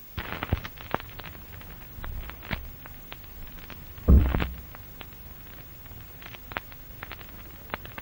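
Irregular sharp clicks and crackles, with a louder crack and low thud about halfway through.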